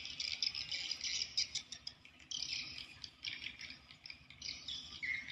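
Fairly faint, high-pitched chirping and chattering of small birds, coming in uneven bursts.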